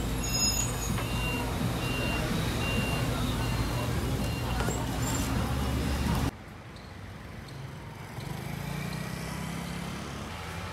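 A large vehicle's engine running with a short high beep repeating about once a second. About six seconds in, it cuts off abruptly to a quieter steady hum.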